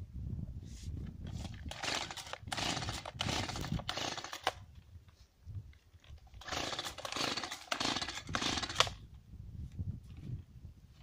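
Chainsaw coughing into two short, choppy spells of running, each about two seconds, and dying again in between: it will not keep running, which the owner puts down to a faulty spark plug.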